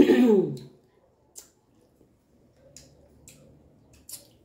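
A short vocal sound falling in pitch at the very start, then a few light clicks of a metal spoon against a glass plate.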